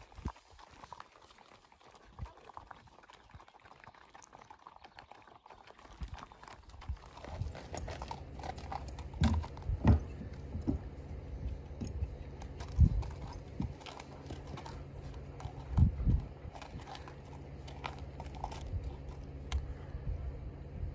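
Hooves of a small herd of horses walking on a dirt road, a faint clip-clop. After about six seconds this gives way to a steady low hum with several dull thumps.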